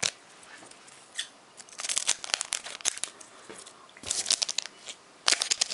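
Foil booster pack wrapper being torn open and crinkled, in several short crackling bursts.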